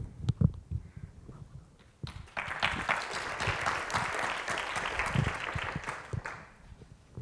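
Audience applause: it starts about two seconds in, lasts about four seconds and fades out. A few low thumps come just before it, near the start.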